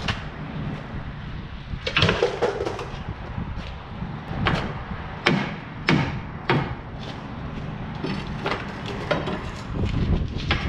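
Irregular sharp metal clanks and knocks, a dozen or so, as tools and steel parts strike a heavy truck's steel frame while a rusty rear cross member is worked loose, over a low steady rumble.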